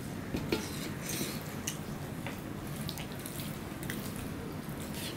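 Fingers mixing rice with curry on a steel plate: soft wet squishing with scattered light clicks.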